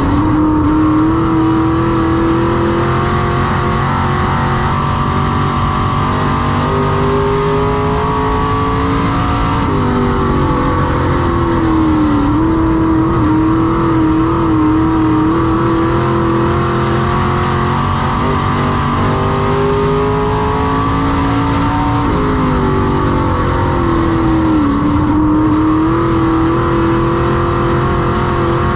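Dirt semi late model race car's V8 engine running hard at racing speed. Its pitch dips and climbs back in a cycle that repeats about every twelve seconds, lifting off for the turns and pulling down the straights of an oval lap after lap.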